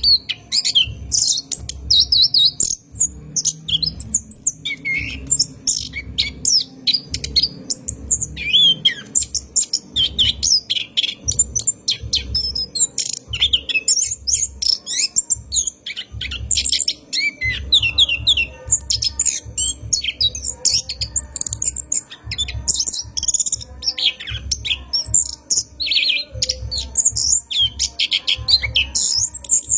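Orange-headed thrush (anis kembang) singing a long, unbroken run of rapid, varied chirps, trills and squawky notes, the continuous rolling song that bird keepers use as a lure recording. Low thuds repeat about twice a second underneath.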